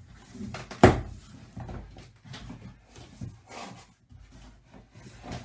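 Large cardboard box being opened by hand: taped flaps pulled up and apart, with irregular rustling and scraping of cardboard and one sharp knock about a second in.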